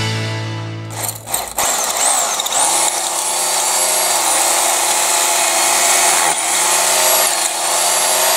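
Makita power drill spinning up about two seconds in, then running with a steady high whine while drilling, dipping briefly twice.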